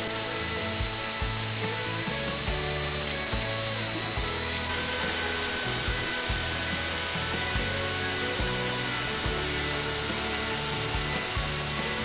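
Background music with a steady beat, over the steady high whine and hiss of an HDT CDD 405 cordless drill running unloaded with its trigger clamped on. The whine jumps to a different pitch a little before halfway.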